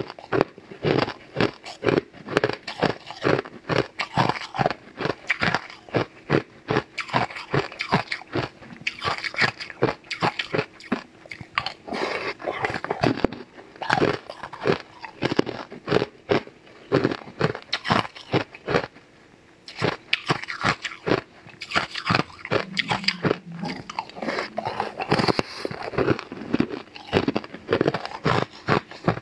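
Close-miked crunching and chewing of hard purple ice pieces, a rapid run of crisp crunches with a short lull about two-thirds of the way through.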